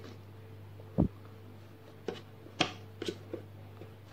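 Hands handling an empty paperboard box tray on a table: a dull thump about a second in, then a handful of short sharp taps and clicks. A steady low hum runs underneath.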